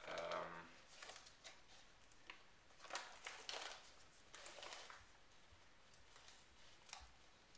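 Fingers picking at and tearing open a white mailing envelope, giving short, scattered bursts of crinkling and ripping, the largest about three seconds in. A brief sound of a man's voice at the very start.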